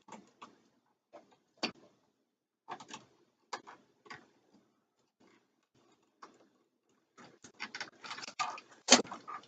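Scattered small clicks and taps as the wires and a plastic electrical outlet are handled to push a wire into the outlet's push-in terminal. A denser run of clicks and rustling comes near the end, with one sharp click the loudest.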